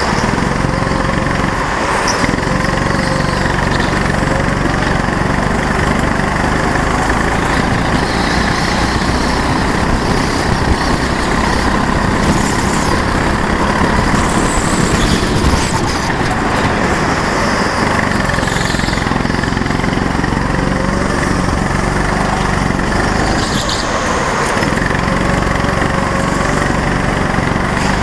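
Go-kart's small engine running hard during laps, its note rising and falling with the throttle through the corners.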